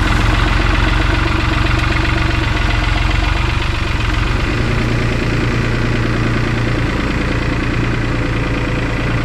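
Compact tractor's engine running steadily as the tractor drives away; its low note changes about four and a half seconds in.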